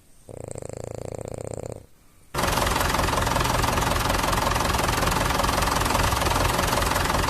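A French bulldog snoring in a fast rattle for about a second and a half, then, after a brief gap, a much louder tractor engine running steadily with a deep rumble, cut off suddenly at the end.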